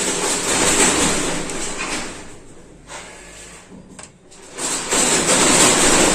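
Two bursts of harsh scraping noise, each about two seconds long, with a quieter gap between them.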